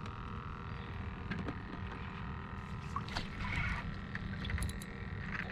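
Quiet ambience in a boat on a calm lake: a low steady rumble with a faint hum, a few faint ticks, and a soft brief murmur about halfway through.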